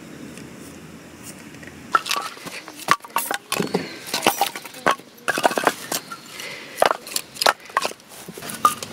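Split firewood pieces being handled, knocking and clattering against each other as they are set down. A run of sharp, irregular wooden knocks starts about two seconds in, after a quiet start.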